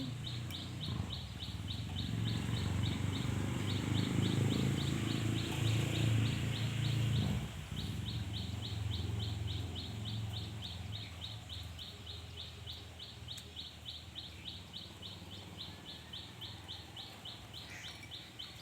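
Steady, rhythmic high-pitched chirping, about four chirps a second, from a chirping animal. For the first seven seconds or so it sits under louder, low, muffled handling noise.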